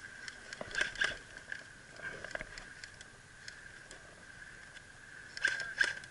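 Scattered sharp snaps of airsoft gunfire in pairs, about a second in and again near the end, over a steady high-pitched whine.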